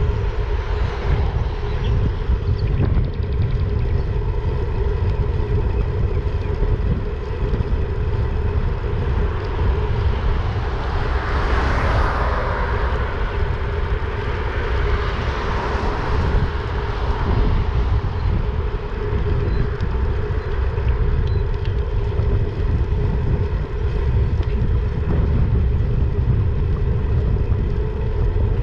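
Wind buffeting the microphone of a handlebar-mounted camera while riding, over a steady hum. About twelve seconds in, a car passes, its tyre noise swelling and fading, and another passes a few seconds later.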